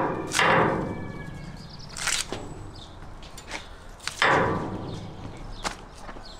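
A sharp knife cutting through a hanging lamb carcass, with two loud ripping cuts through meat and sinew, one just after the start and one about four seconds in, and a few small knocks between them.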